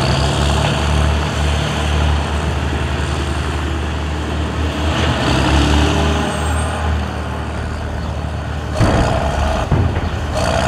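Heavy wheel loader engine running with a steady low drone and a short rising whine partway through as the bucket lifts. Near the end come two sharp thuds about a second apart as the bucket tips its load into a dump truck's bed.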